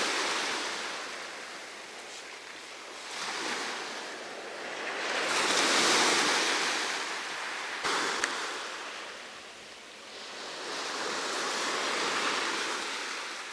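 Sea surf washing on a beach: a steady hiss that swells and falls back in slow surges, loudest about halfway through and again near the end.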